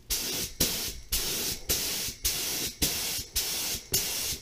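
Gravity-feed paint spray gun hissing in short repeated bursts, about two a second, as the trigger is pulled for pass after pass while clear coat is sprayed onto a gas tank.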